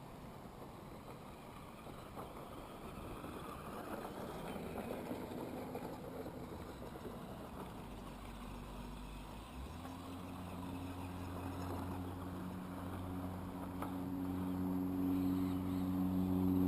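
Axial SCX10 Deadbolt RC crawler's electric motor and drivetrain running as it drives through snow. In the second half a steady low hum comes in and grows louder.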